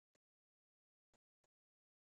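Near silence, broken by three very faint short clicks.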